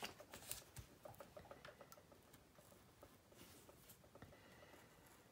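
Faint, irregular ticking and scratching of a sharp X-Acto hobby knife blade cutting through paper and a Tamiya masking sticker sheet on a cutting mat.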